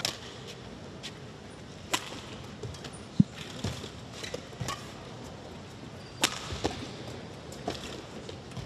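Badminton rally: sharp racket-on-shuttlecock hits, roughly one a second, over the hall's background noise, with a low thud about three seconds in as the loudest sound.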